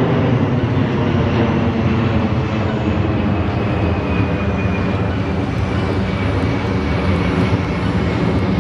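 Boeing C-17 Globemaster III's four Pratt & Whitney F117 turbofans at high power as it climbs away overhead: a steady, deep jet roar with a faint high whine that falls slightly in pitch about halfway through.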